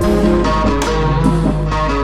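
Background music: a pop track with guitar and a steady beat, no vocals in these seconds.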